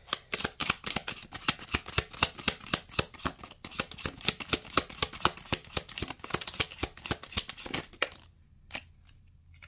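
A deck of oracle cards being shuffled by hand: a rapid run of crisp card clicks, several a second, for about eight seconds. It stops as a few cards drop onto the table, then only a couple of faint ticks.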